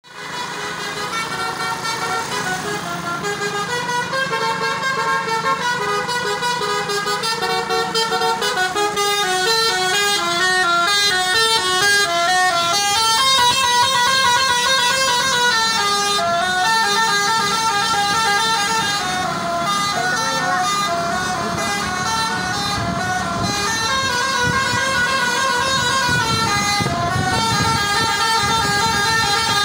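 Indonesian 'telolet basuri' multi-tone bus horn playing a melody in held notes that step up and down in pitch. A low rumble rises beneath it in the second half.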